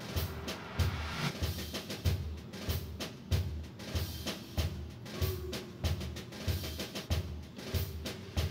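Background music with a steady drum beat, about three beats every two seconds.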